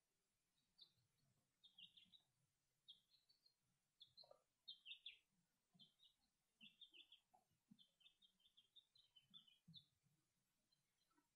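Small birds chirping: faint runs of short, high chirps, several a second, loudest about five seconds in.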